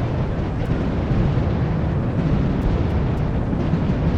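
Fireworks bursting in quick succession, their booms running together into one continuous low, crackling rumble.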